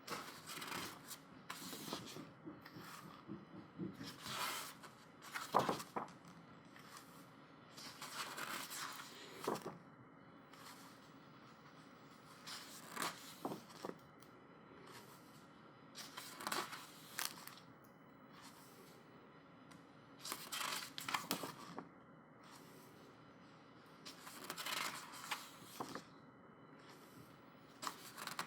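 Pages of a photobook being turned by hand: short, irregular paper rustles and flicks every few seconds.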